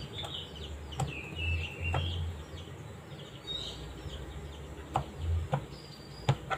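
Birds chirping faintly in the background, with a few light clicks of a metal spoon against a plastic bowl as tempeh slices are dipped in batter.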